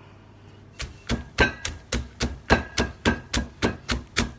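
Pestle pounding roasted fresh chillies and shallots in a mortar: steady, sharp strikes about three to four a second, starting about a second in.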